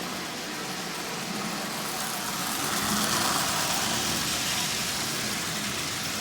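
Electric motors in Marx tinplate toy train locomotives running on the track: a steady whir and rattle of motor and wheels on the rails. It grows louder about three seconds in as a locomotive passes close, then fades back.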